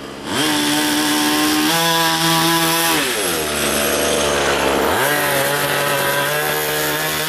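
Small two-stroke gas engine of a large-scale RC truck, freshly rebuilt with a 30.5 cc big-bore kit, running on break-in fuel. It revs up about a third of a second in and climbs a little higher. Around three seconds in it drops back to a lower speed, then revs up again at about five seconds and holds there.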